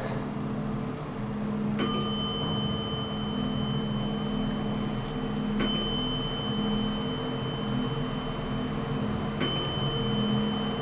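Northern elevator's floor chime ringing three times, about four seconds apart, as the car travels up past the floors, over the steady hum of the moving cab.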